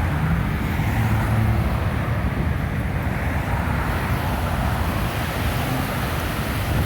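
Strong gusting wind buffeting the microphone: a loud, steady, rumbling roar with no let-up.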